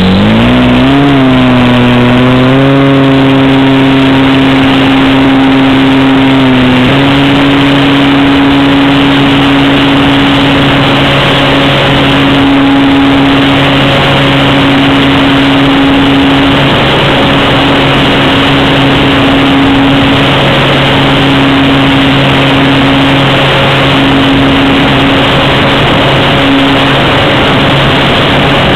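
Brushless electric motor of an RC Cub model plane, heard through its onboard FPV camera: a whine that rises in pitch as it throttles up from the grass for takeoff, then holds steady, stepping up slightly about seven seconds in, over a steady hiss.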